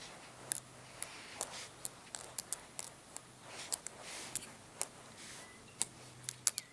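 Small plastic toy pieces being handled, clicked and tapped together: irregular sharp little clicks, about two a second, over a faint steady hum.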